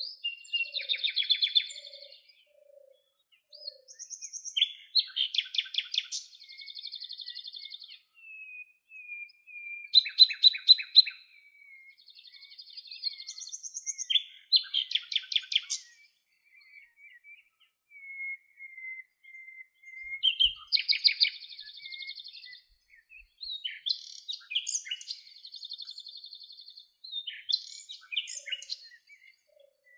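Songbirds singing: rapid trilled phrases and buzzy notes, with thin drawn-out whistles between them. A faint low note repeats about twice a second in the first few seconds and again near the end.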